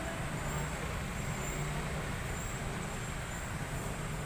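Steady low rumble of a vehicle engine running, under a constant wash of background noise.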